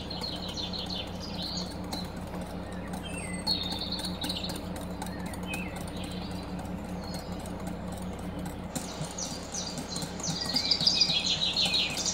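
Wire whisk beating against a glass bowl, a fast run of light clicks and squeaky scrapes, as hot milk is whisked into egg yolks to temper them. The whisking gets busier near the end.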